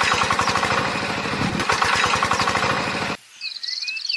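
Tractor engine sound effect running with a rapid, even pulsing and a steady hum, cutting off suddenly about three seconds in. Faint bird chirps follow.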